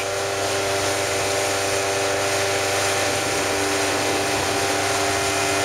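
Motorboat engine running at a steady speed, a constant hum, under an even rush of wind and water.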